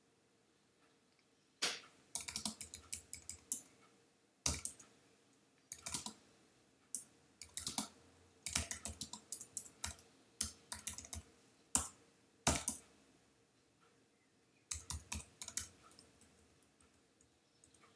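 Typing on a computer keyboard: short runs of rapid keystrokes broken by brief pauses, with a longer pause about two-thirds of the way through.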